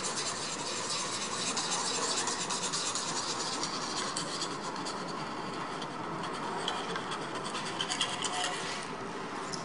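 Sandpaper scraped back and forth in rapid short strokes against the side of a sneaker's upper: a dense, scratchy rasp that stops near the end. The sanding is distressing the shoe's finish around the swoosh to make it look worn.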